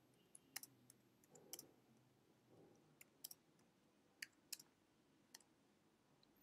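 Faint, scattered clicks of computer keyboard keys as a short expression is typed, about a dozen separate clicks at uneven intervals.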